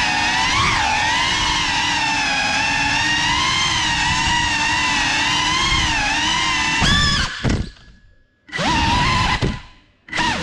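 Cinelog 35 cinewhoop FPV drone's motors and propellers whining, the pitch wavering up and down with the throttle. About seven seconds in, the whine cuts away twice to near silence for about half a second, as on throttle chops, and comes back in a burst each time.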